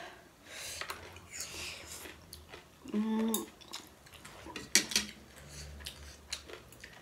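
Forks and spoons clinking and scraping on ceramic plates as two people eat noodles, with slurping. A short hummed 'mm' comes about three seconds in, and two sharp clinks about five seconds in are the loudest sounds.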